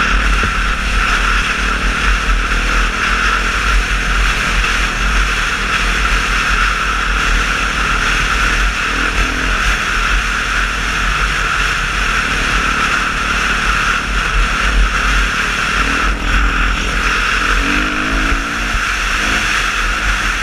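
Dirt bike running along a gravel track, heard from a helmet-mounted action camera: steady engine noise under a heavy low rumble of wind on the microphone.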